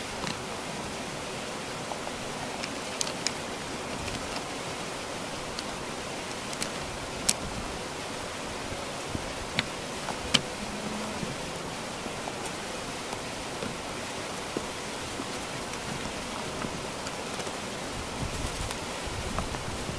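A steady hiss of water, with sharp stone-on-stone clacks every few seconds as flat stones are set onto a dry-stone wall. Near the end there is a burst of rustling, with boots stepping through dry leaves.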